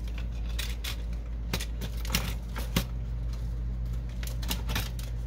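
Plastic and sheet-metal parts of a Canon Pixma MP560 inkjet printer's carriage unit clicking and rattling irregularly as they are handled and pulled apart, over a steady low hum.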